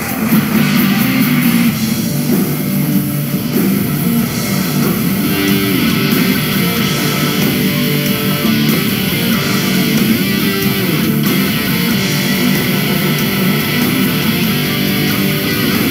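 Loud rock music with electric guitar, playing without a break.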